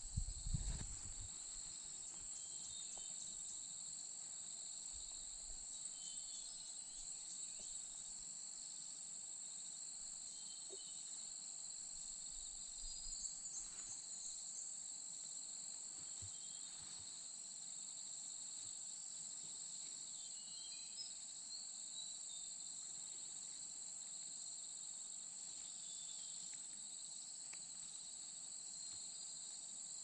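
Steady outdoor insect chorus, a continuous high-pitched drone that does not change. A brief low rustle comes in the first second, and faint short chirps turn up here and there.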